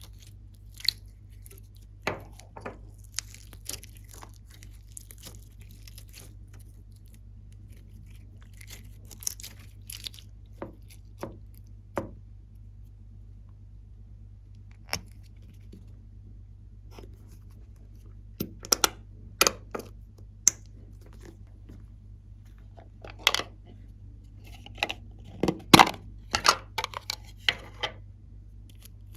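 Glossy slime being handled: scattered sticky clicks, pops and crackles at irregular intervals, coming thicker in two bunches in the second half.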